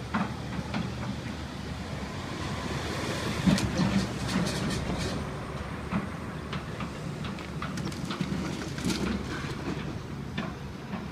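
Hydraulic excavator's diesel engine running steadily while its bucket tears into the building, with repeated clanks and crashes of concrete and sheet-metal debris. A cluster of louder crashes comes about a third of the way in, with single knocks later on.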